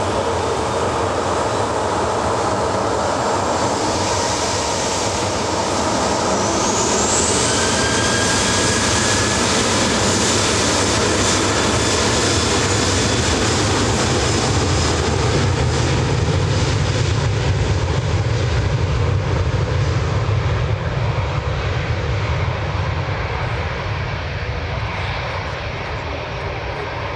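Loud jet noise from a Boeing 737-800's CFM56-7B turbofan engines at takeoff power. A whine rises in pitch about seven seconds in, then a heavy low rumble builds through the takeoff roll and slowly fades as the jet accelerates away.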